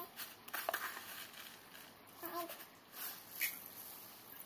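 Dry glutinous rice poured from a plastic cup into a stainless steel pot: short rattling hisses of grains, about a second in and again about two seconds in. A couple of faint short calls come in between.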